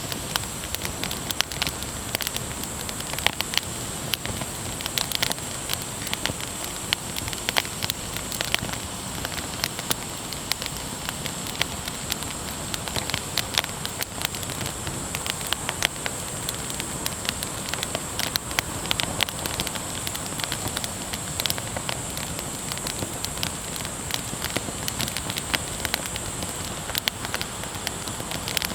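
Firewood burning in a campfire, crackling with many irregular sharp snaps over a steady hiss.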